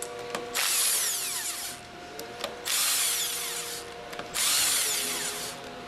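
Cordless impact wrench with a 10mm hex drive loosening the outlet valve retaining bolts on a plunger pump manifold: three runs of about a second each, with short pauses between bolts.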